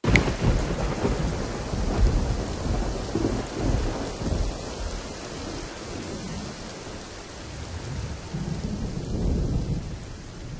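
Rain falling steadily with rolling thunder, a recorded thunderstorm effect that begins suddenly. The thunder swells loudest at the start, around two to four seconds in and again near nine seconds.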